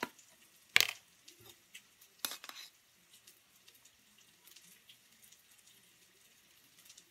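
Handling of a baking powder can and a metal spoon over a stainless steel mixing bowl. There is a sharp click about a second in and a short clatter a second and a half later, then faint small scrapes and ticks as baking powder is spooned out.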